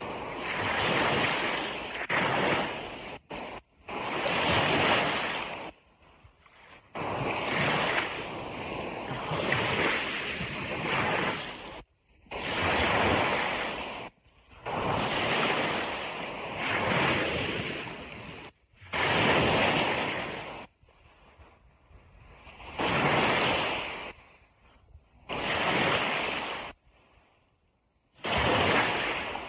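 Ocean surf washing onto a beach in a series of surges, each a second or few long, that cut off sharply into brief near-silence between them.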